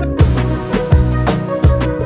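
Background music with a steady beat of drums and bass.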